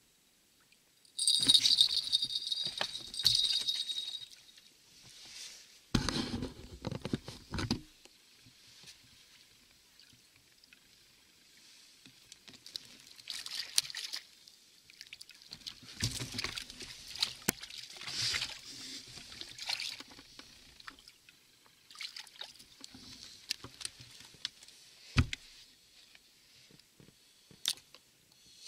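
Small bite-alarm bell on a fishing rod tip jingling for about three seconds, signalling a bite. A low thump follows, then a hooked fish splashing at the water's surface for several seconds beside an inflatable boat.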